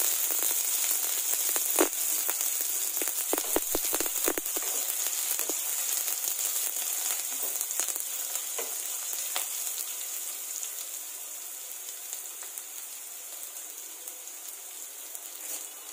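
Sliced onions frying in hot oil with mustard and cumin seeds in a stainless steel kadai, sizzling steadily as a wooden spatula stirs them. A few sharp clicks and knocks come in the first few seconds, and the sizzle gradually fades.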